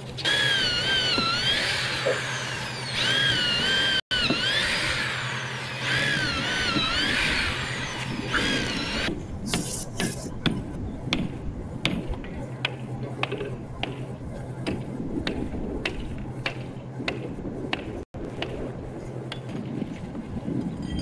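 Construction work on wooden floor panels: tools clicking and knocking in quick irregular strokes, most densely from about nine seconds in. Over the first nine seconds a loud, high wavering tone keeps rising and falling above them.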